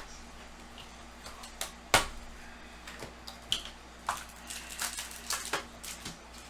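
Trading card box and packs being handled and opened by hand: scattered sharp clicks and crinkles of cardboard and wrapper, with one louder snap about two seconds in.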